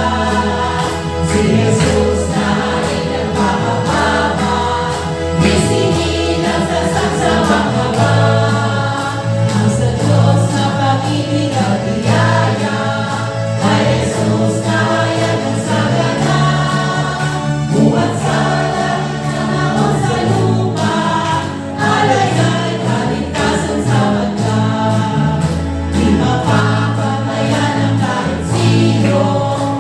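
A choir singing a carol over instrumental backing with a steady beat and bass line.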